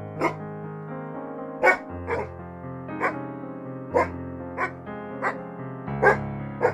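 A dog barking, about nine short barks at uneven intervals, over steady background music.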